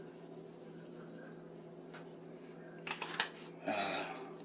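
Hand-twisted pepper grinder crunching black peppercorns over a bowl of meat: faint fine ticking at first, then a few clicks and a louder rasping grind near the end, over a low steady hum.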